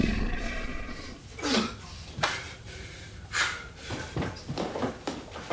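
A man breathing hard in a string of short gasps and exhales.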